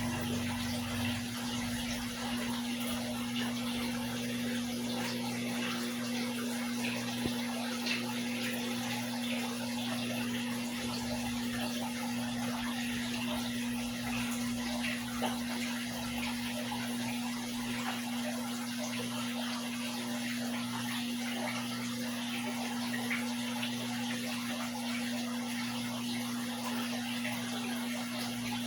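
Aquarium water running and bubbling steadily, a fine fizzing trickle over a constant low hum.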